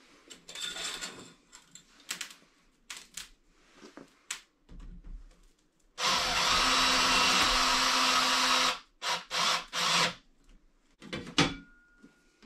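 Cordless drill running steadily for about three seconds, then a few short trigger pulses, fastening the stovepipe's wall bracket to the wooden wall. Light clicks and handling clatter come before it.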